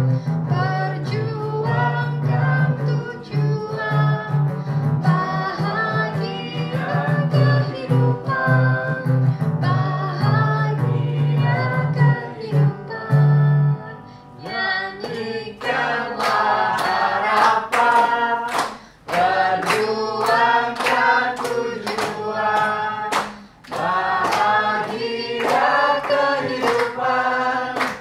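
Acoustic folk song sung by a group of voices over acoustic guitar. About halfway through the guitar stops and the group keeps singing unaccompanied, clapping a steady beat about twice a second.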